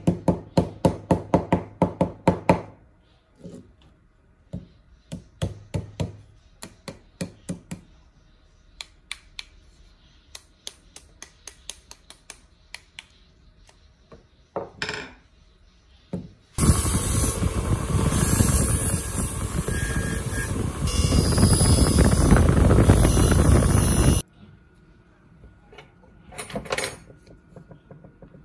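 Workshop hand-tool work: a quick run of sharp taps or clicks, then scattered taps. About sixteen seconds in, a loud, steady rushing noise from a tool starts; it lasts about eight seconds and cuts off suddenly, and a short burst follows.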